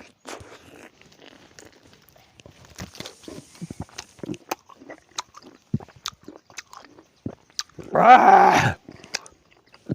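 Close-miked mouth sounds of someone eating lemon: biting, chewing and wet smacking clicks. About eight seconds in comes one short, loud vocal sound.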